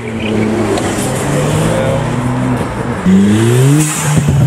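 Ford Fiesta ST engine accelerating, its revs rising through a gear; it gets louder and climbs steeply about three seconds in, then drops at a gear change near the end.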